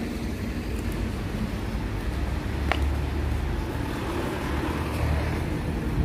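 Street traffic: a steady low rumble of road vehicles, with a single short click about two and a half seconds in.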